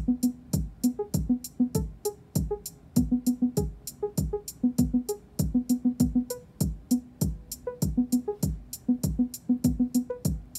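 A Eurorack modular synthesizer playing a sequenced loop: a kick drum thumping about twice a second, fast steady ticking on top, and short plucked synth notes in an uneven, shifting pattern. The notes stay short even with longer gate settings, which the player puts down to the envelope having no sustain.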